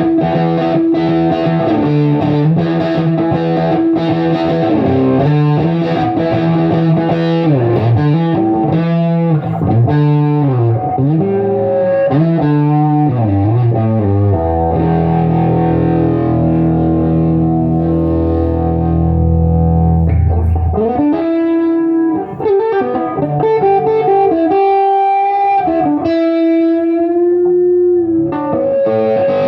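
Electric guitar played through a Bell 3723M PA head driven into heavy fuzzed-out overdrive with no pedals: distorted riffs and chords, a long held low chord about halfway, then bent, wavering notes near the end.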